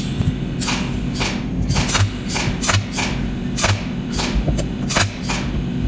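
Cold welding machine spot-welding with its tungsten electrode: a rapid, irregular string of sharp snapping zaps, about three a second, over a steady low hum.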